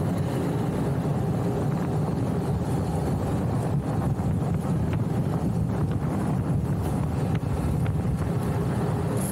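Steady rush of wind over the microphone mixed with the rumble of street luge wheels rolling on asphalt.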